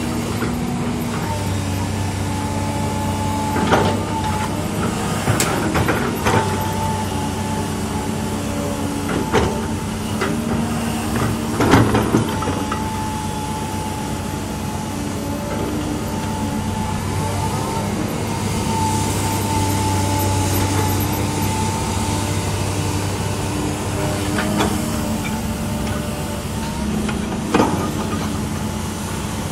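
LiuGong 920D excavator's diesel engine running steadily, with a wavering higher whine over the engine hum. Several sharp knocks and clanks come through, the loudest about twelve seconds in.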